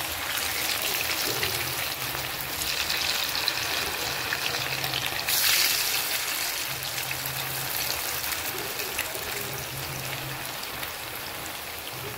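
Marinated chicken pieces frying in hot oil, a steady sizzle as more pieces are added to the pan, briefly louder about five seconds in.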